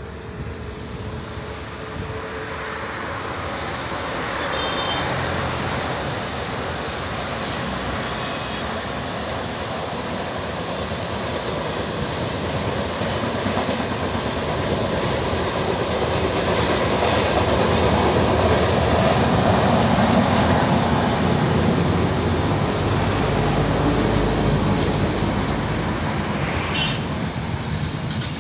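Express passenger train hauled by a WAP-7 electric locomotive running past, a steady rumble of wheels on rails that grows louder and is loudest about two-thirds of the way through.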